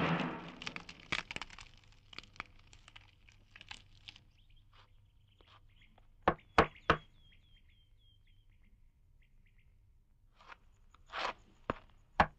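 The tail of music fades out in the first second, then sparse sound effects: a few sharp clicks, three in quick succession about six seconds in and several more near the end, with faint high chirps in between.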